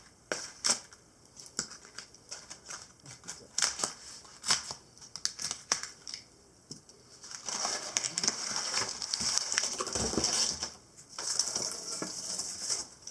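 Packaging being pulled apart and handled as a glass photo print is taken out of its box: scattered sharp clicks and snaps, then a stretch of denser rustling about halfway through.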